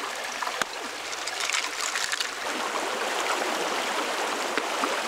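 Shallow stream flowing over rocks, a steady rushing hiss, with a couple of sharp clicks, one about half a second in and a fainter one near the end.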